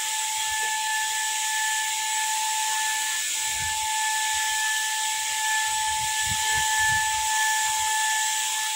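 Handheld electric paint spray gun running and spraying paint: a steady high whine from its motor over a constant hiss of air and atomised paint.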